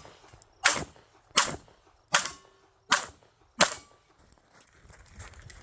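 Five pistol shots in a steady string about three-quarters of a second apart, from a Canik Rival S Darkside 9mm pistol, with a brief ringing after the third shot.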